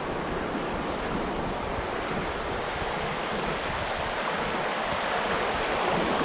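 Steady rush of river water, growing a little louder near the end.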